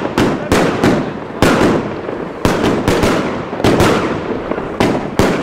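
Triplex TXB586 100-shot fireworks cake firing rapidly: loud bangs of shots launching and bursting, about three a second, with a dense crackle filling the gaps between them.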